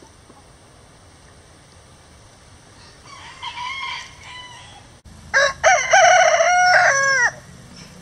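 Rhode Island Red rooster crowing: a fainter call about three seconds in, then a loud full crow from about five seconds in, a short opening note followed by a long drawn-out one that drops in pitch as it ends.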